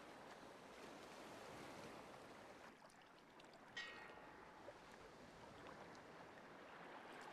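Faint, steady wash of the sea, with one brief high-pitched sound about four seconds in.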